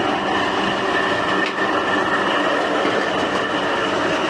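Air conditioner outdoor unit running: a steady mechanical hum with a high steady whine over it. The compressor is running very hot while the condenser fan motor is not turning, so the unit is not cooling.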